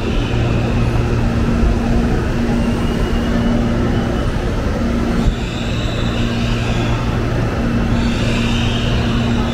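Steady hum of CPTM electric suburban trains standing at the platforms in a large covered station, a constant low electrical drone with a thin high whine that grows stronger about halfway through.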